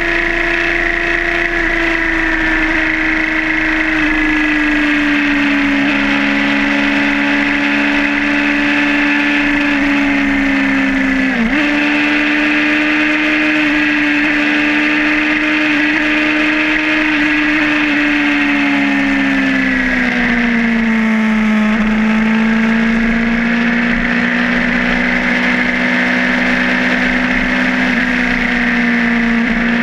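Suzuki GSR600's inline-four engine running under way at steady revs. The revs dip sharply for a moment about a third of the way in, and ease down gradually a little past two-thirds of the way in.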